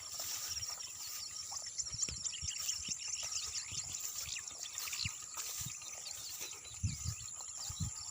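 Birds chirping outdoors: many short, quick high chirps, with a couple of low thuds near the end.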